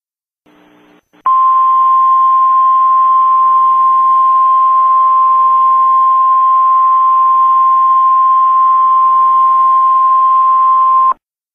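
Emergency alert attention tone: a single steady high-pitched beep held for about ten seconds over a faint hiss, which cuts off suddenly near the end. A brief faint hiss comes just before it.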